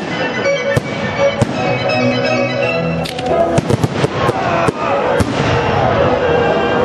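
Fireworks going off in a display: single sharp bangs about a second in and again half a second later, then a cluster of several bangs in quick succession around the middle, over music playing throughout.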